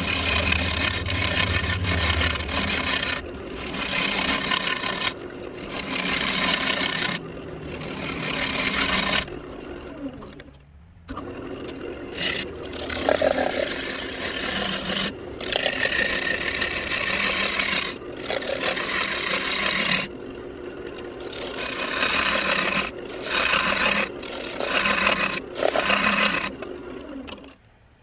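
Lathe tool cutting into a spinning walnut blank, a scraping, rasping sound that comes in repeated passes of one to three seconds with short breaks between them. It stops sharply near the end.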